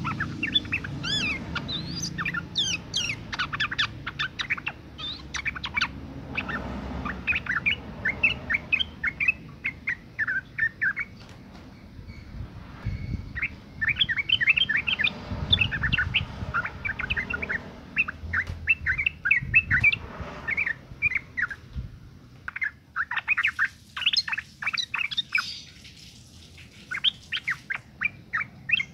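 Female yellow-vented bulbul (trucukan) in breeding condition giving rapid runs of short chattering calls, with short lulls about twelve and twenty-two seconds in. This is the call a female gives to males.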